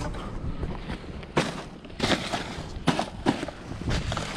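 A few irregular knocks and clunks, four sharp ones in about two seconds, over faint background noise.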